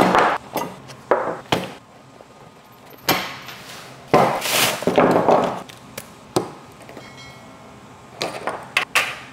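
A leather knife roll flapped open and slid across a wooden butcher-block table in a few swishes, with sharp knocks as an oyster knife is set down on the wood. Near the end, a quick run of clicks and knocks as oyster shells are handled on the table.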